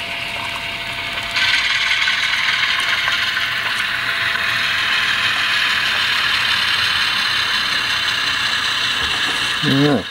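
HO scale model diesel locomotive running as it shoves a cut of gondolas: a steady mechanical sound from its sound decoder's diesel engine and its geared drive, which steps up louder about a second and a half in.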